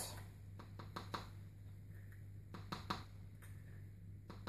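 Faint, scattered light clicks and taps of a small plastic spoon and cup being handled, about eight in all, over a low steady hum.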